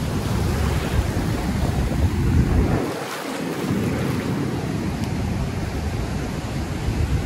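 Small waves washing up onto a sandy beach, with wind buffeting the microphone in a heavy low rumble that eases briefly about three seconds in.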